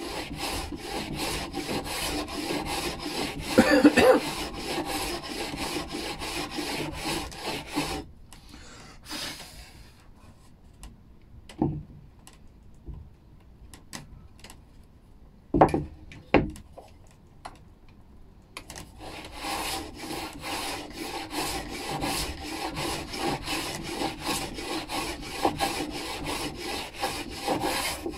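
Old metal hand plane taking thin shavings off a pine board in short, quick strokes, about three a second, shearing across the grain at an angle. The planing stops about eight seconds in, leaving a few sharp wooden knocks, then starts again in the last third.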